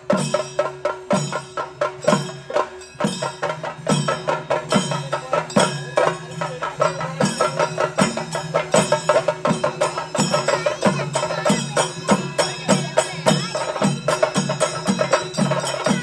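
Chenda drum ensemble beaten with sticks in a dense, fast roll, with a low drum stroke that quickens from about one a second to about two a second and a steady metallic ringing above.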